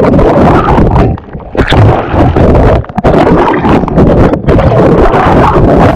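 Loud rushing water and buffeting on an action camera's microphone as it is dragged through and under the sea surface, dropping away briefly about a second in and again near three seconds.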